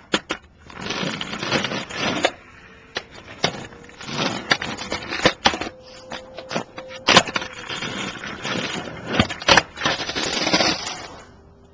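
Skateboard wheels rolling over coarse asphalt in several passes, broken by sharp clacks of the board hitting the ground, the loudest about two-thirds of the way through.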